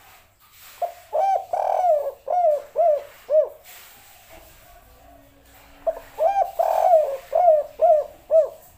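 Spotted dove (tekukur) cooing two song phrases. Each phrase has a couple of short coos, one longer drawn-out coo, then three short clipped coos to end it, the 'kuk 3' ending that the title names.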